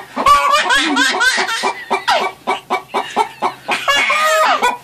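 A chicken clucking in a fast run of short calls.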